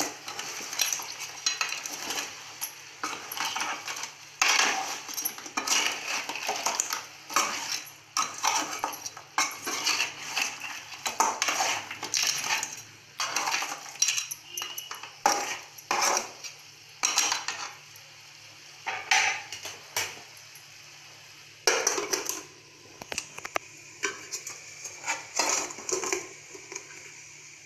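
Metal spoon scraping and clinking against an aluminium pan as raw crab pieces are stirred and tossed with chili powder and spices, in an uneven run of clanks that pauses briefly about two-thirds of the way through; near the end an aluminium lid clatters on a pot.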